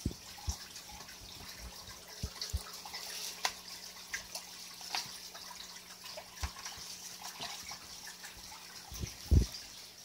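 Aquarium water with scattered small drips and splashes while African cichlids snatch food pellets at feeding time, over a faint steady hum. There are several low thumps, the loudest near the end.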